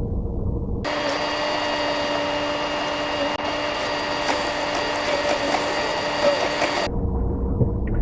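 A car's low driving rumble heard from inside the cabin. About a second in it switches to a high, steady whirring hum with several fixed tones, the same driving noise played back at ten times speed. Near the end it drops back to the low rumble.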